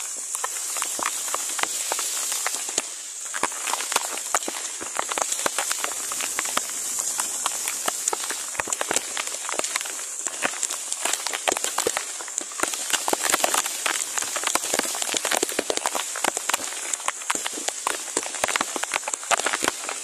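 Heavy rain pattering on foliage: a dense, uneven spatter of drop clicks over a steady high hiss.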